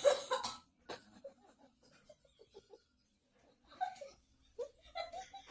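A person's cough: one sharp, loud cough right at the start, followed by faint wheezy breaths and short laugh-like sounds toward the end.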